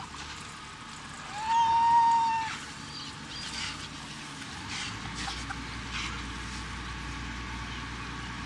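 Sea lion colony calling: one long, drawn-out, steady-pitched call about a second and a half in, then fainter short calls. A boat engine hums low underneath, getting stronger about five seconds in.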